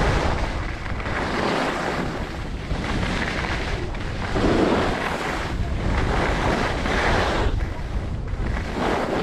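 Wind rumbling on a GoPro's microphone while skiing downhill, with skis scraping over packed, chopped-up snow in swells that rise and fall with each turn.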